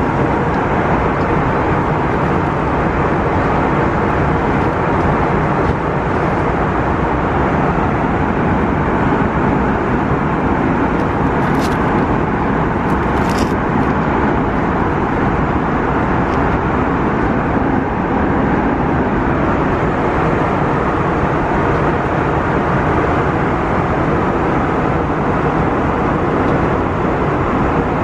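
Airbus A321neo cabin noise in flight: a steady airflow and engine roar filling the cabin, unchanging throughout. A couple of faint light clicks sound about halfway through.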